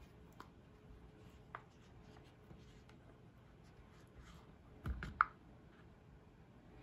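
Quiet handling noises: faint rubbing and small clicks of fingers on a leathery snake eggshell as a hatchling blood python is drawn out. About five seconds in, a dull knock and a sharp click as the egg is set down on the stainless steel table.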